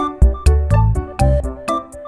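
Upbeat electronic background music: a steady drum-machine beat with heavy bass and synthesizer notes.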